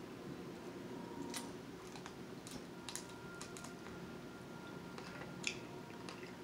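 Boiled snow crab shells being cracked and picked apart by hand: a scattering of faint, sharp clicks and snaps, about half a dozen, the clearest a little after five seconds in.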